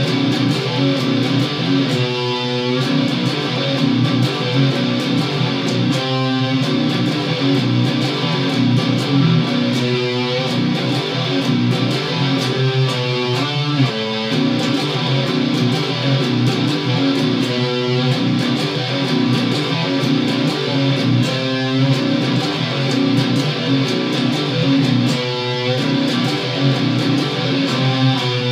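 Electric guitar played with distortion, a heavy riff that repeats about every four seconds.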